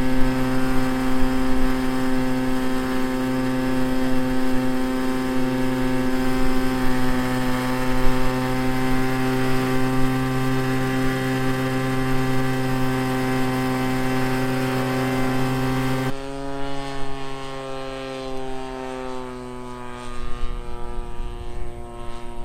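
Small two-stroke 20cc gas engine of an RC Piper Cub model plane running steadily with its propeller, at a constant high pitch. About two-thirds of the way through it suddenly turns quieter and slightly lower, and its pitch wavers.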